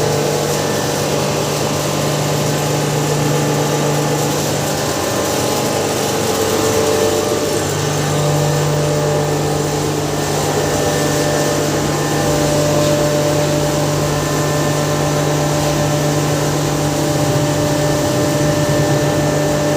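Hammer-mill maize grinder running steadily: a loud, even machine whir with a steady hum under it.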